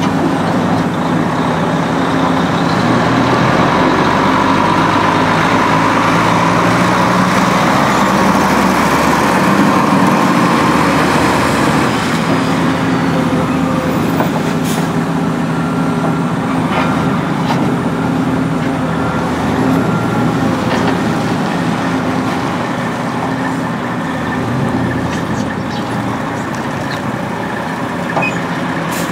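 Volvo EC290CL excavator's diesel engine and hydraulics working hard, the engine pitch rising and falling as the boom and bucket move. In the second half, a few sharp cracks and knocks come from the steel bucket breaking up and lifting the road asphalt.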